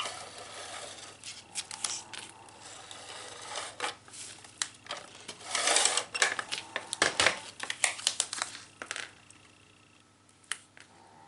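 Cardstock being handled and pressed into place: paper rustling and sliding with irregular small clicks and taps, busiest in the middle and quieting near the end.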